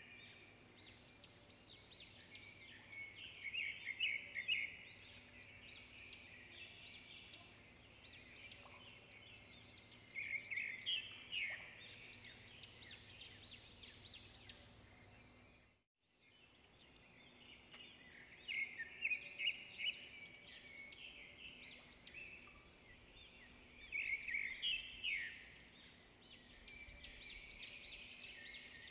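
Birdsong: many small birds chirping and trilling in quick clusters. It drops out briefly about halfway through, then starts again with a similar run of calls.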